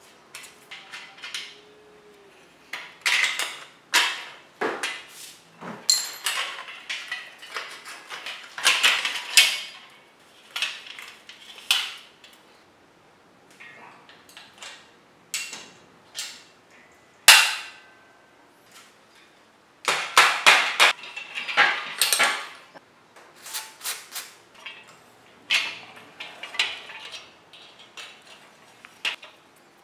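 Irregular metal clinks, clanks and knocks of a wrench and the steel parts of a vintage Japanese 16-inch bicycle being taken apart, in clusters with short pauses and one sharp knock a little past the middle.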